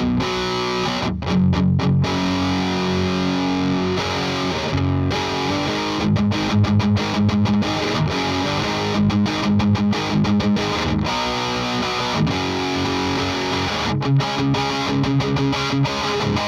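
Distorted electric guitar from an Ibanez V-Blade with Mojo Tone Blackmagic pickups, played through an Abominable Electronics Hellmouth distortion. It plays ringing chords and choppy riffs with short, abrupt stops.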